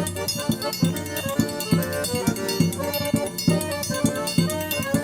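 Northeastern Brazilian accordion music: sustained accordion chords over a steady, quick drum beat with light high percussion.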